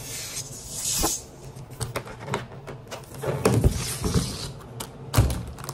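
Latex balloons being blown up by mouth: puffs of breath, rubbery handling and a few knocks, over the steady hum of a room air conditioner.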